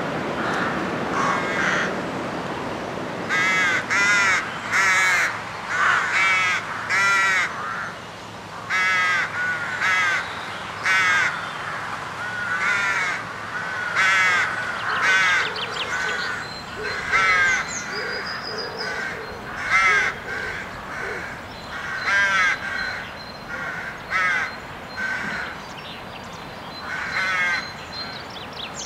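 Rooks at a rookery cawing, several birds calling harsh, repeated caws in quick succession, some overlapping.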